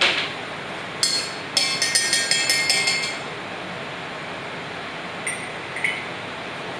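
Ice cubes clinking and ringing against a stainless-steel mixing pitcher in a quick cluster for about two seconds, then two light clinks of glass or metal near the end, over a steady hiss.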